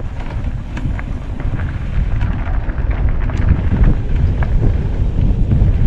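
Mountain bike riding down a rough dirt trail: wind buffeting the microphone and tyres rolling over the ground, with scattered sharp clicks and rattles from the bike.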